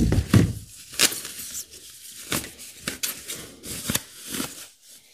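Plastic wrapping crinkling and rustling in irregular bursts as a speaker is unwrapped from its packaging, with a couple of dull bumps from handling at the start.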